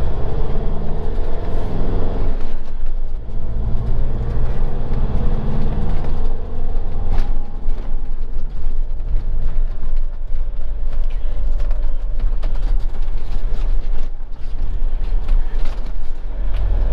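Motorhome engine and road noise heard from inside the cab. For the first six seconds the engine note rises and falls as it pulls through the gears. After that it settles into a steady rumble with scattered creaks and clicks from the cabin.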